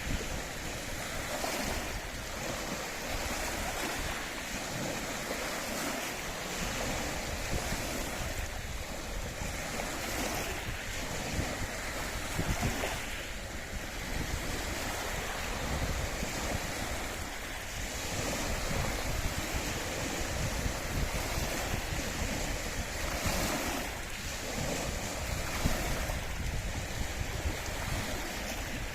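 Waves on Loch Ness washing and lapping in slow surges, with wind blowing and gusting over the microphone.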